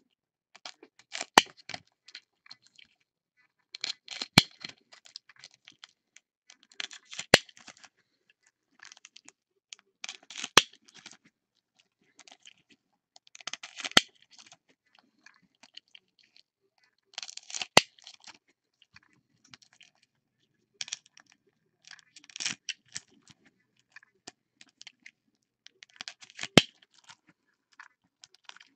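Foil trading-card packs being torn open and handled, crinkling in short bursts about every three seconds, most with a single sharp click.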